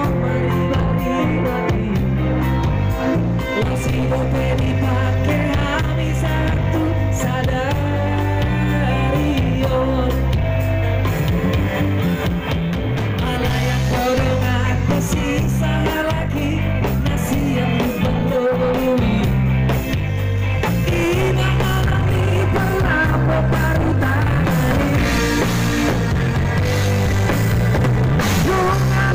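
Live rock band playing on stage: electric guitars, bass and drums, with a singer.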